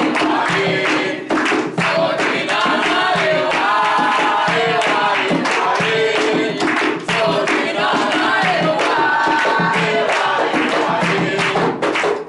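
A group of voices singing an Umbanda ponto (devotional chant) together, accompanied by steady rhythmic hand-clapping.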